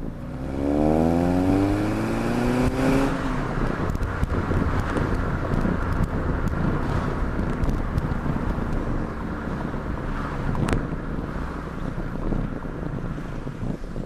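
Exhaust note of a 2010 Mazda3 GT's 2.5-litre four-cylinder through a new Magnaflow muffler, heard at the tailpipe while driving. The engine revs up under acceleration in the first three seconds, rising in pitch, then settles into a steady cruise under a rush of road and wind noise. A single sharp tick comes about three-quarters of the way through.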